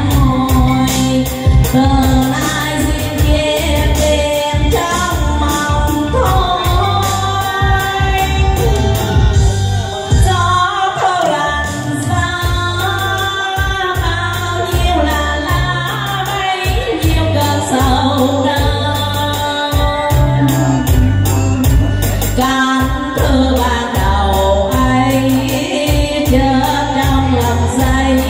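A woman singing a Vietnamese song into a microphone over a recorded backing track with a steady beat.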